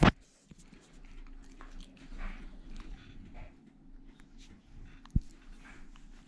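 Siberian husky's muzzle and fur rubbing against a close-up camera, with soft mouth and rustling noises. There is a sharp knock at the start and another about five seconds in.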